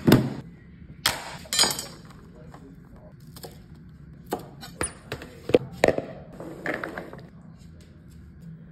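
Kitchen handling sounds: a clear plastic storage container knocking and clacking as it is handled, then a knife cutting green beans on a cutting board. The sounds are a series of sharp knocks and clicks, with the loudest near the start and about a second later, then a handful of chops between about four and seven seconds in.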